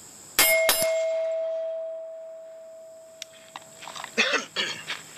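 Two gunshots about a third of a second apart, hitting a steel plate target that rings with a clear tone fading over about three seconds. A few footsteps on gravel near the end.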